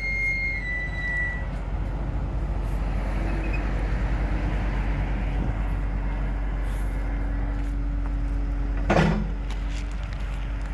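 Caterpillar M316D wheeled excavator's 124 kW diesel engine running steadily under load with a steady hum, as the machine moves and works its boom. A high-pitched whine stops about a second and a half in, and a brief louder burst comes about nine seconds in.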